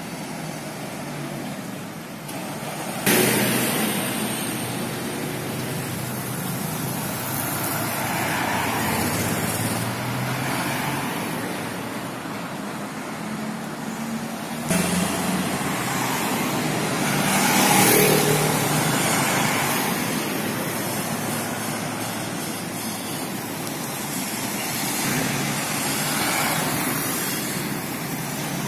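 Road traffic going past: a steady rush of noise from passing cars that swells and fades several times, with two abrupt jumps in the sound about three and fifteen seconds in.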